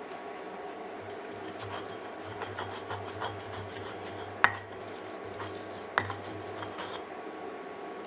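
Stone pestle grinding and scraping in an Indonesian volcanic-stone mortar (cobek), crushing garlic and chili, with scattered gritty clicks and two sharp knocks of stone on stone, the first a little over halfway through. A steady low hum runs underneath.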